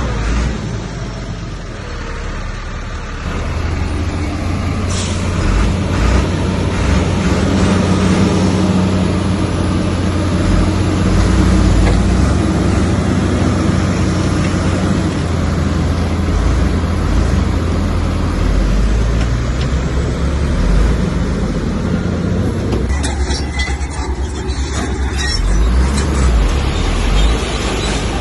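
Heavy earthmoving machine's diesel engine running hard, a steady low rumble that grows louder about three seconds in, with scattered knocks and clanks near the end.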